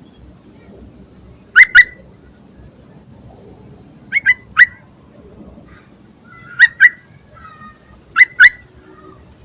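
Yellow-vented bulbul (trucuk) calling: four loud bursts of two or three quick, sharp notes each, roughly two to three seconds apart, with a few softer notes between the last two bursts.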